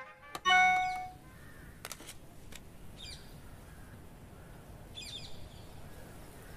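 A short ringing electronic chime from a mobile phone, a message alert, about half a second in, fading within a second. Then quiet outdoor background with crows cawing faintly, twice.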